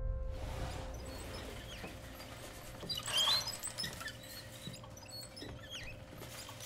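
Shopping cart rolling across a store floor, its swivel casters giving small squeaks and rattles that are busiest about three seconds in, over a faint steady hum.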